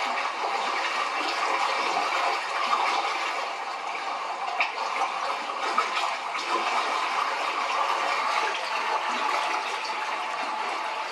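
Steady rushing, water-like noise, like running or bubbling water, with no clear rhythm or pitch.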